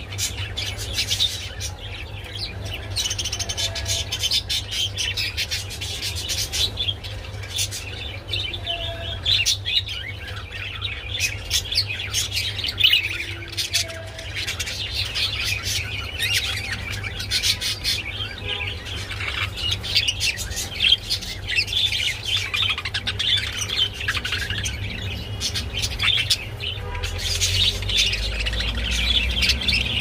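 Budgerigars chattering, a dense run of quick high chirps and warbles with no breaks, over a steady low hum that swells into a low rumble near the end.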